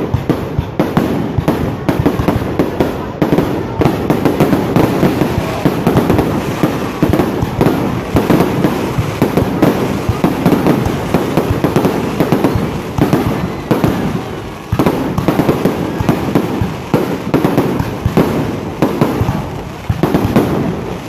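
Fireworks going off in a dense, continuous barrage of rapid, overlapping bangs and crackles.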